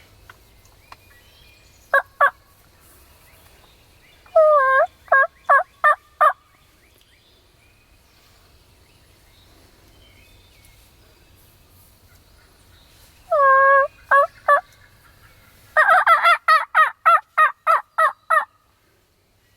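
Turkey yelping in short series of clear, pitched notes: two notes, then two runs that each open with a longer note followed by several short ones, and near the end a faster run of about ten notes.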